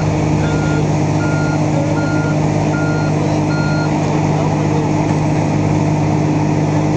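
A vehicle's reversing alarm beeping, about five evenly spaced beeps that stop about four seconds in, over a motor vehicle engine running steadily.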